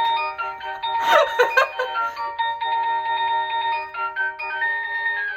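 Electronic doorbell chime playing a fast melody of many bright, ringing notes. A brief noisy sound cuts across the tune about a second in.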